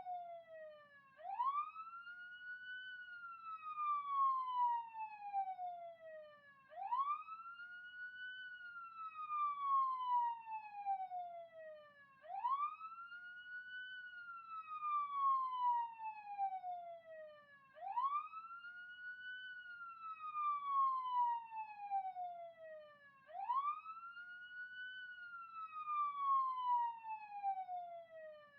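Police siren sounding a slow wail. The pitch climbs quickly, then falls slowly, and the cycle repeats about every five and a half seconds, five times over.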